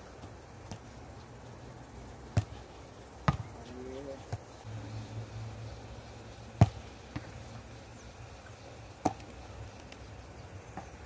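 Sharp thuds of footballs striking a goalkeeper's gloves and the grass during a catching drill, about six separate hits, the loudest about two thirds of the way through.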